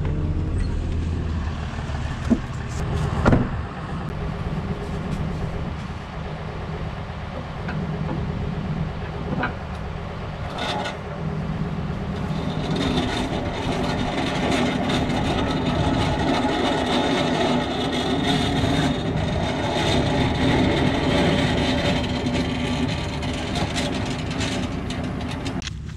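Dodge Ram 4500 tow truck's engine running steadily. A few knocks come in the first seconds, and a steady higher hum joins the engine sound about halfway through.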